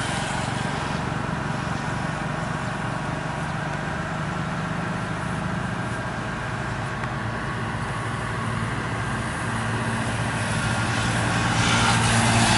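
Motor vehicle engines running on the adjacent road: a steady engine hum that gets louder near the end as a vehicle comes closer.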